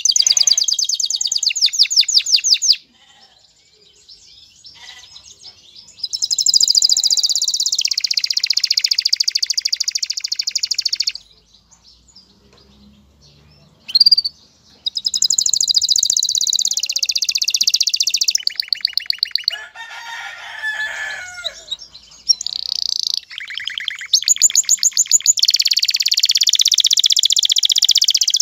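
Male domestic canary singing a courtship song in breeding condition: rapid high trills of fast repeated notes, sung in phrases of a few seconds with short pauses between them. A lower warbling passage comes a little after the middle.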